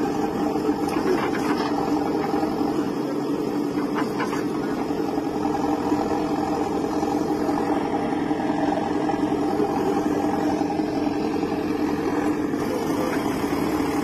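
Diesel engines of a backhoe loader and a tractor running steadily at an even pitch, with a few faint knocks in the first few seconds as the backhoe works.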